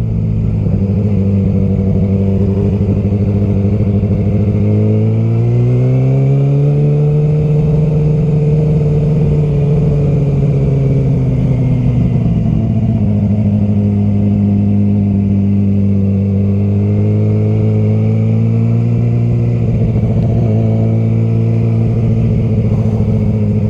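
Yamaha R6's inline-four engine running steadily under way. Its pitch rises gently about five seconds in, holds for a few seconds, then eases back down and stays steady.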